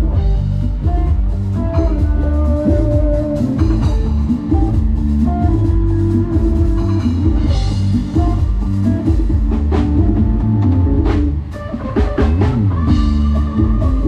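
Live band music played loud through a small Thai parade sound truck's PA: electric bass, electric guitars and drums over heavy low bass from its SR18 bass cabinets and TD-112 mid cabinets. The level dips briefly about eleven and a half seconds in, and notes bend in pitch around twelve seconds in.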